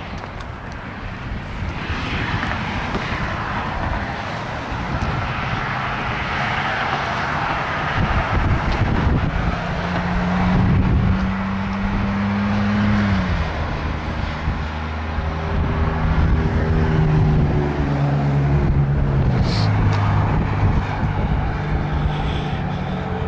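Road traffic passing on a highway: a steady rush of vehicles, joined from about eight seconds in by a droning engine note that steps down in pitch a few times.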